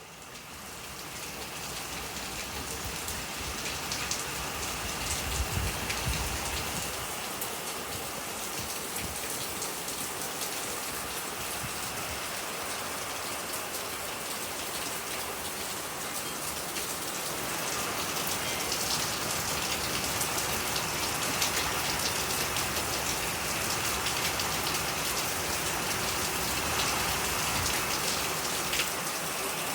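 Steady rain with gusts of wind, one gust coming through low about five seconds in, and the rain growing louder from about eighteen seconds on.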